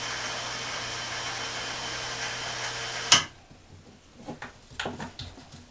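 Electric hoist motor running steadily as it lifts a push mower, then cutting off with a sharp clunk about three seconds in, followed by a few light knocks and clicks.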